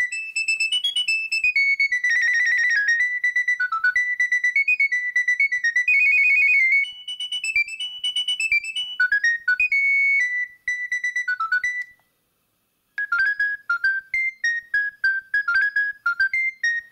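Nokia 7250i mobile phone playing electronic ringtone melodies through its small speaker, in quick runs of bright, short notes. One tune ends about twelve seconds in, and after a second of silence another begins.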